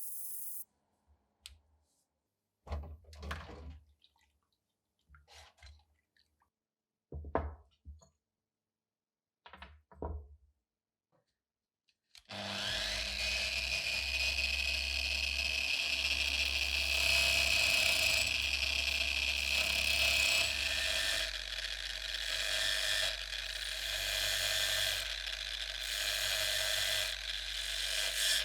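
A few short knocks and scrapes of handling, then an electric power tool starts suddenly about twelve seconds in and runs steadily with a high whine.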